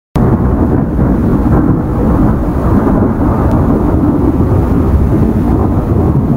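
Thunder-like rumbling sound effect, loud and dense, starting abruptly a moment in and staying steady until it cuts off near the end.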